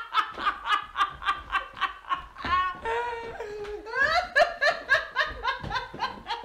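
Women laughing hard together in rapid, high-pitched pulses, with one long drawn-out laughing note a little before the middle that rises back into quick laughter.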